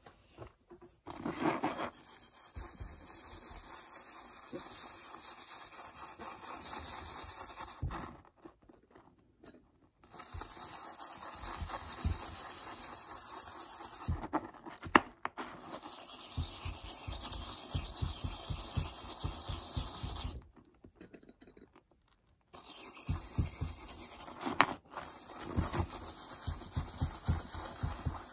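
Old toothbrush scrubbing a baking soda and water paste against a metal necklace pendant, rapid back-and-forth bristle strokes to polish off the dirt. The scrubbing comes in three long bouts with two brief pauses.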